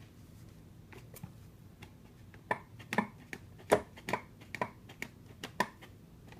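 Repeated sharp clicks from a pad being worked by hand, sparse and faint at first, then louder and more frequent, at an uneven two to three a second from about two and a half seconds in. The owner fears the clicking is a fault they caused.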